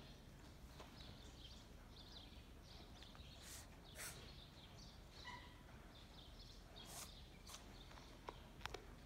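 Near silence: quiet outdoor ambience with faint, scattered bird chirps and a few light clicks.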